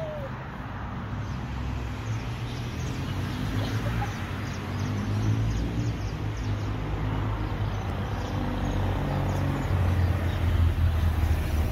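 Outdoor ambient noise: a steady low rumble that grows a little louder toward the end, with a brief high chirp right at the start.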